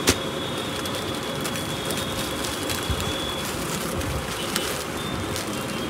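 Steady background noise of a shop with a thin high whine that stops briefly in the middle, and a sharp click right at the start.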